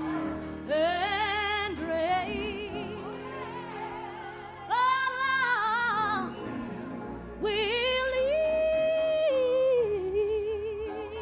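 A solo voice singing long held phrases with strong vibrato over steady sustained low accompaniment notes, in three swells that start and stop.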